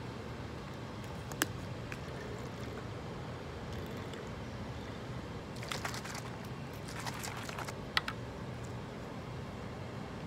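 Plastic screw cap of a drinkable-oatmeal bottle twisted, with a sharp click about a second and a half in. Then a cluster of light clicks and rattles as the bottle is shaken, ending with a sharp click at about eight seconds.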